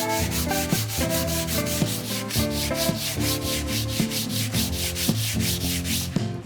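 Rapid back-and-forth abrasive rubbing, as in sanding or honing by hand, at about six or seven strokes a second, stopping near the end. Background music plays underneath.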